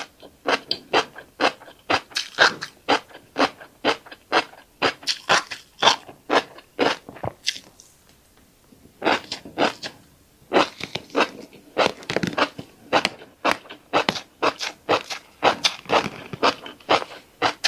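Close-up crunchy chewing of a mouthful of tiny black seeds, a quick run of sharp crunches at about two to three a second, breaking off for a second or so partway through and then resuming.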